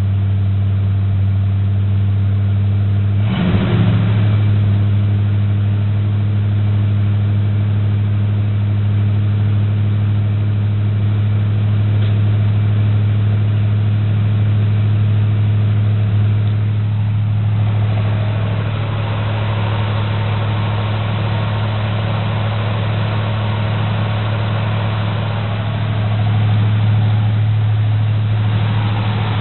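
1984 GMC Camper Special's engine idling steadily on a cold start, heard through dual Dynomax Turbo mufflers with 2¼-inch pipes and an H-pipe, while it warms up and settles toward normal idle. One brief sharp sound comes about three and a half seconds in, and the exhaust gets more hiss in it from a little past halfway.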